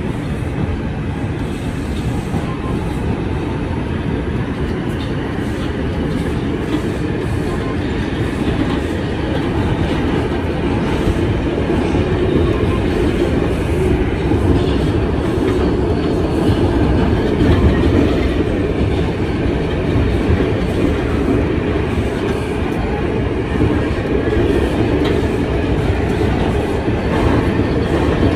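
Inside a Bombardier R142 subway car running through the tunnel: the steady running noise of wheels on the rails and the car under way, growing a little louder as the run goes on.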